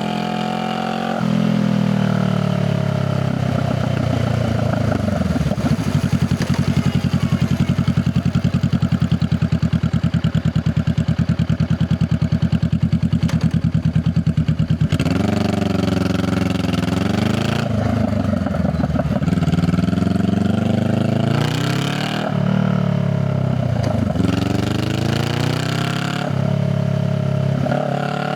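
Honda Rebel 500 motorcycle's parallel-twin engine and exhaust: the revs drop about a second in, settle to a steady low pulsing idle for several seconds, then the engine pulls away, rising in pitch and dropping back again and again as it shifts up through the gears.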